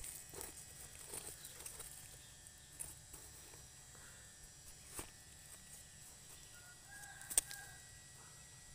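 Faint scraping and light ticks of a knife blade digging in dry, crumbly soil, loosening a mushroom, with a sharp click about seven seconds in. A brief call, two pitches held for under a second, sounds at about the same time.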